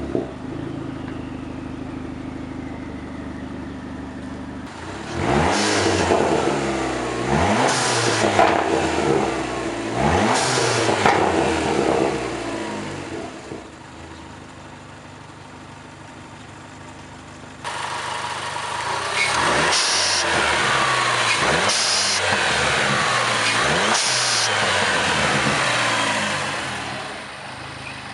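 Turbocharged 2.4-litre four-cylinder of a 2006 PT Cruiser GT idling and being blipped through a MagnaFlow cat-back exhaust: three short revs, an idle, then three more revs. After each rev the MPx blow-off valve vents with a brief hiss.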